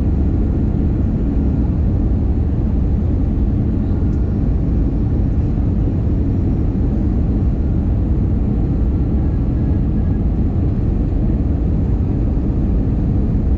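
Steady low rumble of a jet airliner's engines and rushing air, heard from inside the passenger cabin while descending on approach to land.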